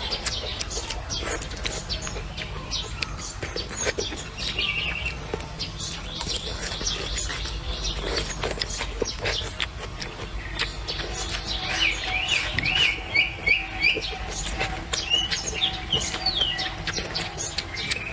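Close-up chewing and mouth sounds of someone eating, with wet clicks and smacks throughout. Birds chirp in the background, including a quick run of about five chirps about two-thirds of the way through.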